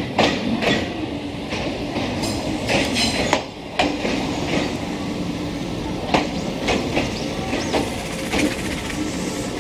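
Mizuma Railway 1000 series electric train pulling into the platform at low speed, a steady running rumble with its wheels clacking irregularly over rail joints.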